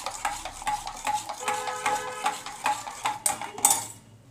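A metal spoon stirring thin sattu sharbat in a stainless steel vessel, clinking against the sides in quick, regular strokes about four to five times a second. The stirring stops near the end.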